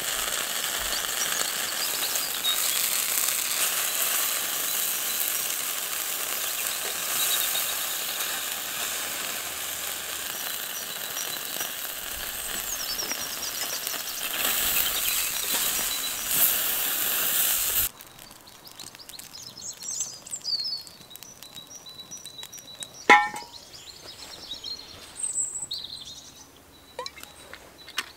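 Pork loin sizzling on a Firebox stove's grill grate over a wood fire, a steady hiss. About eighteen seconds in it gives way abruptly to a much quieter stretch of birds chirping, faint ticks and a single sharp clink.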